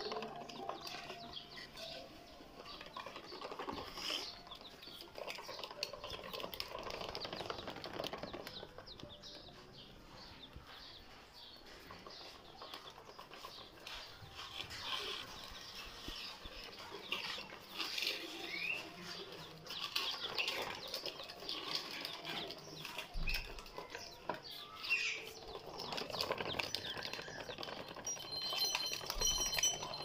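Plastic toy dump truck rolling across a tiled floor, its wheels and body rattling with irregular clicks and knocks under the load of parrot chicks.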